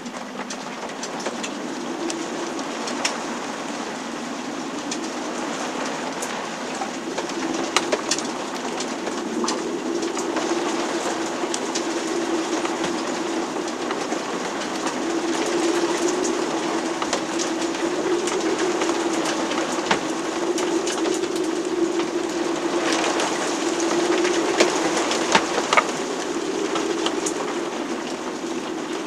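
Storm heard from inside a sailboat's cabin: a continuous rushing noise with a steady low hum running through it, swelling and easing, and scattered small clicks and knocks.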